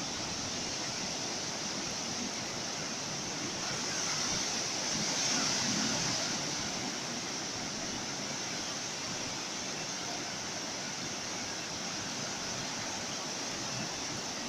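Ocean surf: a steady wash of breaking waves, with one wave swelling louder about four to six seconds in before the rush settles back.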